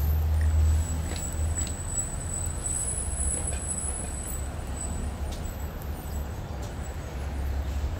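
Low rumble of street traffic, loudest in the first second, then steady.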